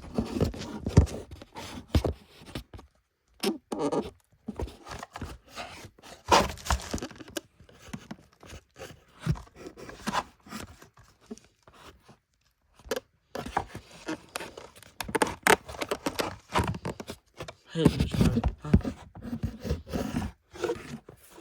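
Hand tools scraping, clicking and crunching against the parts of an iPhone 4 as it is pried and cut apart, in irregular bursts with short pauses.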